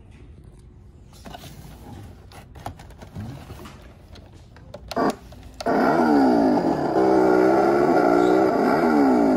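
Boxed Halloween 'Bloody Chainsaw' toy prop playing its chainsaw sound effect. It starts suddenly a little past halfway and runs loud and steady, its pitch dipping and rising again every second or two like a revving saw. Before it, the box knocks and rustles as it is handled.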